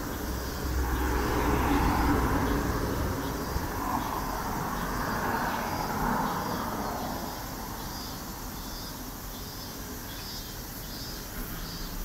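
Cars and vans driving past on a city street, tyre and engine noise swelling and fading as each vehicle goes by. The traffic is loudest in the first half and thins out in the second.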